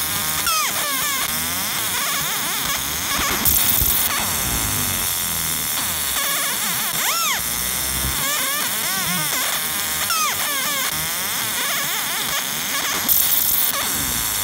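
Galvo laser engraver marking aluminium with a hatch fill: the scanner mirrors make a busy warble of short rising and falling tones over a steady hiss, with two brief louder hissing bursts, about three seconds in and near the end.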